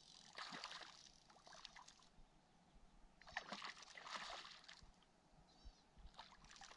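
Near silence, with faint light water splashing and lapping at the lake's edge in three short spells.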